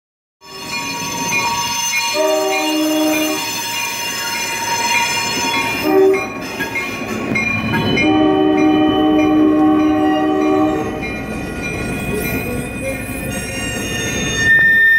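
Diesel locomotive horn of a passing train sounding three blasts: a short one, a very brief one, then a long one, over a bell ringing steadily. A high steady squeal starts right at the end as the passenger cars roll past.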